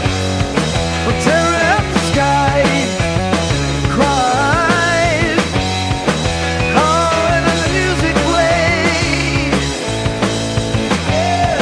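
Psychedelic rock instrumental passage: a lead line with bends and vibrato over bass and a steady drum beat, with no sung words.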